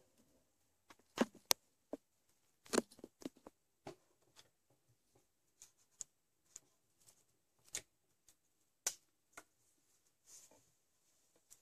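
Felt-tip marker on paper while colouring in: irregular short scratches and taps, with a few louder ones in the first three seconds.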